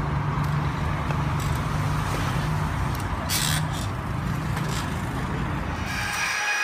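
A motor vehicle's engine runs steadily with a low hum under road noise. About six seconds in it cuts off and a different, higher sound with thin steady tones begins.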